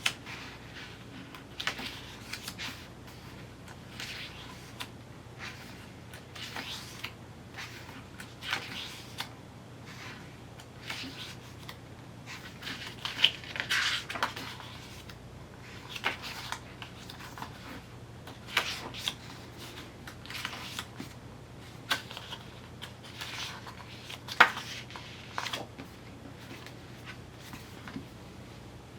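Paper and card album packaging being handled: irregular rustles, flicks and light taps, with a few sharper knocks.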